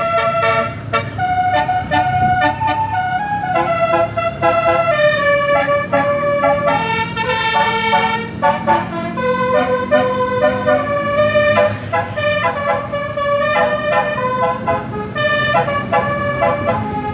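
Basuri 'telolet' multi-tone air horn on a bus playing a melody of quick staccato toots and held notes, over the low rumble of the bus's engine.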